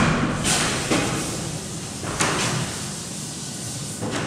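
Chalkboard duster wiping writing off a chalkboard: several rubbing swishes across the board, with a sharper knock right at the start.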